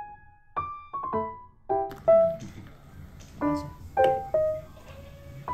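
Background piano music: a melody of single notes, each struck and then fading.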